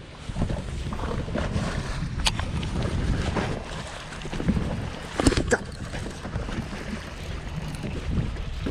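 Wind buffeting the microphone and water slapping against a small fishing boat's hull in choppy water. There is a sharp knock about two seconds in and a louder pair of knocks a little past halfway.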